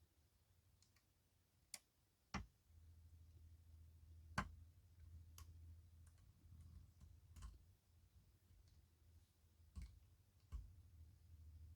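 Faint, irregular clicks of a lock pick and tension wrench working the pins of a pin tumbler lock, about seven small clicks as the pins are lifted and set.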